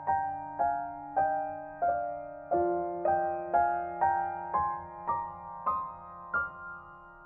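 Background music: a slow, gentle piano melody, with a note struck about every half second over held low notes, the bass changing about two and a half seconds in.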